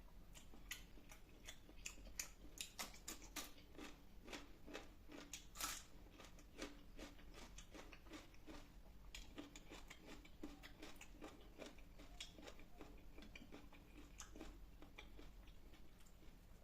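Close-miked eating of a meal of fish curry, rice and salad: irregular chewing and biting with many short crisp crunches, busiest in the first third and thinning later.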